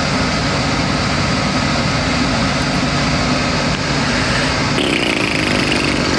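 A small engine drones steadily. About five seconds in, a higher, rising whine joins it.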